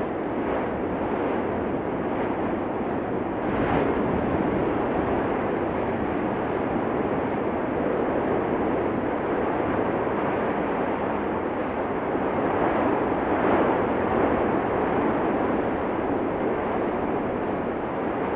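Cumbre Vieja fissure eruption roaring steadily, swelling a little louder about four seconds in and again around thirteen seconds.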